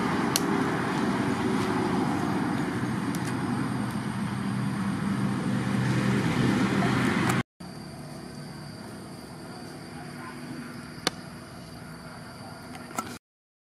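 A steady noise with a low hum, then, after a sudden cut about seven seconds in, a quieter hiss broken by two sharp crackles from a burning pile of split logs.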